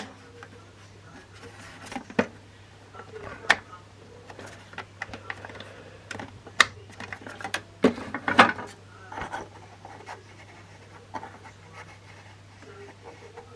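Irregular clicks, knocks and scraping of hard objects being handled, the loudest cluster about eight seconds in, over a low steady hum.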